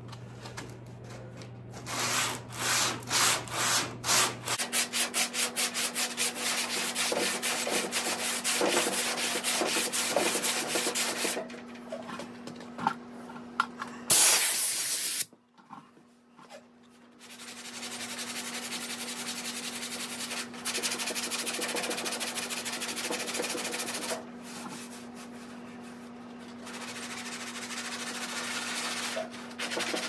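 80-grit sandpaper on a hand sanding block, scraping back and forth across body filler on a steel truck fender to flatten it. It starts as quick strokes, about four a second, then turns to steady scraping, stops briefly about halfway and starts again.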